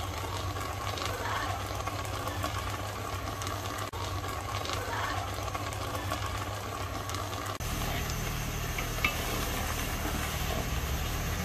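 Pot of chopped taro leaves boiling, a steady bubbling hiss. Partway through, a wooden spatula stirs the boiled, mashed greens in the aluminium pot, with a single sharp knock near the end.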